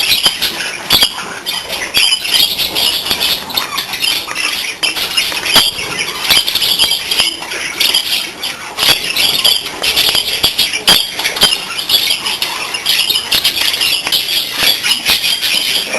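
A flock of budgerigars chattering and squawking without a break, with many sharp clicks and taps scattered through.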